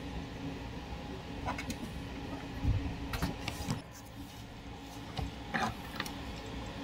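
A few short knocks and taps as a small plastic automotive relay is handled and set down on a wooden tabletop, the loudest a dull thud a little under three seconds in, over a steady low hum.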